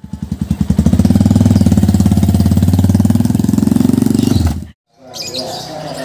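Motorcycle engine running while being ridden, a steady pulsing drone that cuts off suddenly about four and a half seconds in. Birds chirping follow near the end.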